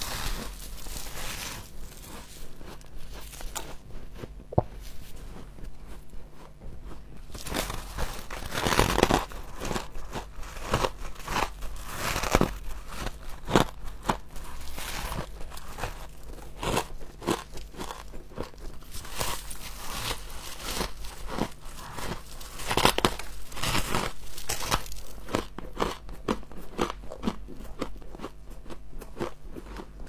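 A person biting into and chewing packed humidifier frost: a long run of crisp crunches, some much louder than others.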